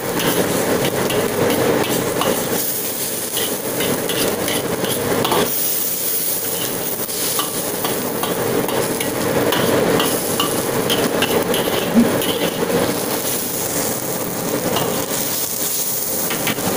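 Chili, tomato and shrimp-paste sauce bubbling and sizzling in a black wok as a metal ladle stirs and scrapes through it, with one sharper knock about three quarters of the way through. Under it runs the steady noise of the stove's blower.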